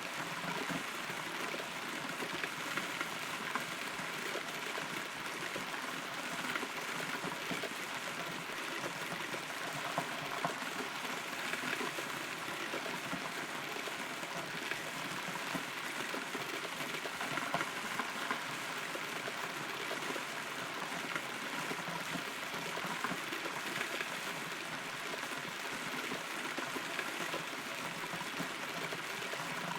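Steady rain heard from inside a hollow rotten tree, a constant hiss with many individual drops ticking on the wood.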